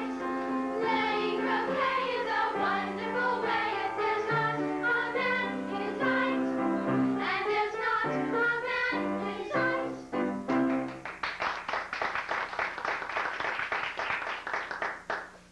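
An ensemble of young voices sings a stage-musical number with accompaniment, the song ending about ten seconds in. An audience then claps for about four seconds.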